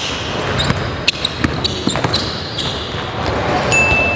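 Basketball dribbled on a hardwood gym floor: repeated sharp bounces, about two a second, ringing in the large hall, with a short high squeak near the end.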